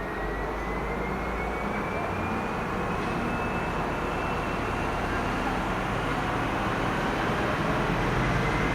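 Train moving through a railway station: a steady low rumble with one thin high whine that slowly rises in pitch over the first few seconds and then fades.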